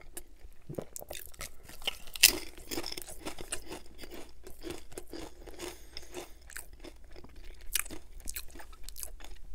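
Close-miked crunching of a salt and vinegar potato chip being bitten and chewed: one loud crunch about two seconds in, then a long run of small, irregular crunches as it is chewed.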